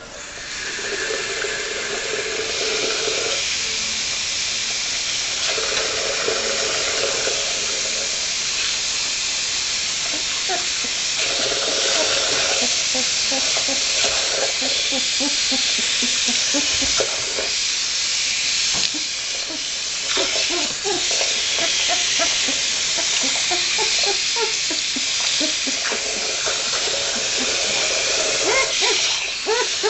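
Water running steadily into a bathtub, turned on suddenly at the start. Short splashing and gurgling sounds come through the second half.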